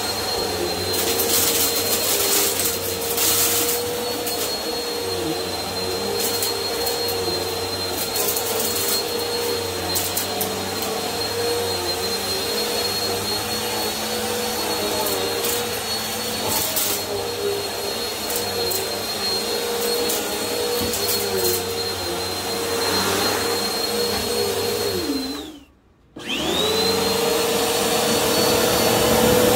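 Bissell upright vacuum cleaner running on carpet: a steady motor whine with occasional short crackles. About 25 seconds in the motor winds down, its pitch falling to a brief silence, then it starts again and rises back to full speed.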